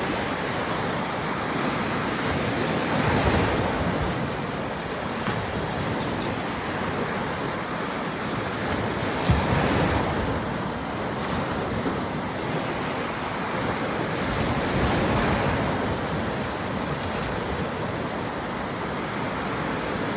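Gulf of Mexico surf breaking on a beach, each wave swelling in about every six seconds over a steady wash, with some wind on the microphone.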